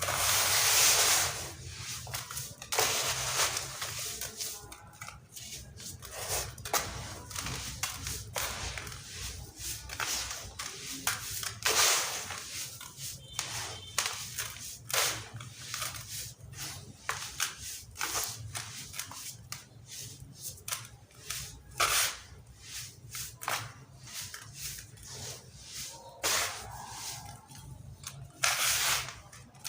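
Dry sand-cement chunks being crumbled, giving irregular crisp crunches and crackles. Louder breaks come about a second in, around twelve seconds in, and again near the end.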